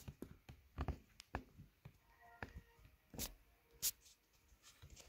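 Scattered light clicks and a few sharper knocks from hands handling fabric at a sewing machine, with no stitching. A faint, brief tone sounds about midway.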